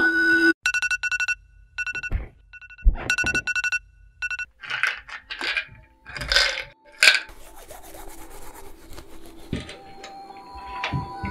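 An electronic phone ringtone sounding in two short bursts of rapid repeating beeps. Then a white plastic pill bottle and its cap are handled, with a run of short rattling clicks.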